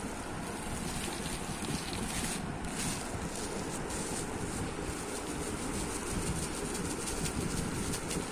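Thin plastic bag crinkling and rustling as spice powder is shaken out of it into a plastic jar, over a steady rushing background noise.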